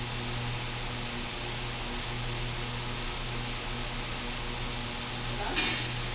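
Steady hiss and low hum of a workshop's background noise, with one short sharp sound about five and a half seconds in.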